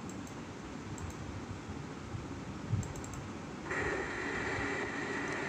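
Steady background hiss with a few faint clicks and a soft low thump a little before halfway; about two-thirds in, a steady high-pitched tone and louder hiss come in.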